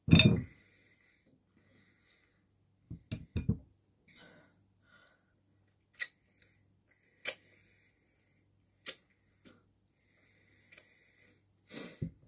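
Scattered handling and eating noises with a thump at the very start, a few knocks about three seconds in and another thump near the end. In between come sharp, separate wet clicks as fingers are licked clean.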